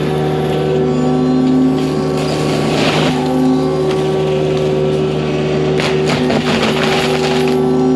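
Forestry mulcher head on a mini excavator running with a steady droning hum, with bursts of harsher grinding about two seconds and six seconds in as the drum chews into wood.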